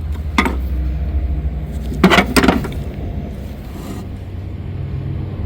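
Hand tools being picked up and knocking against metal in a toolbox: one sharp knock early on, then a louder cluster of clinks and knocks about two seconds in. A steady low rumble runs underneath.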